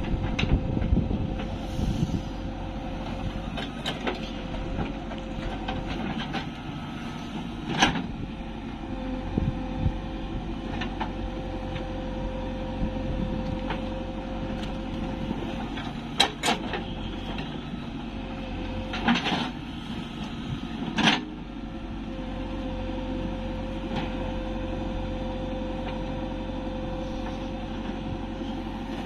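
JCB 3DX backhoe loader's diesel engine running under hydraulic load while it digs, with a steady whine. A handful of sharp metal clanks of the bucket and boom come through it.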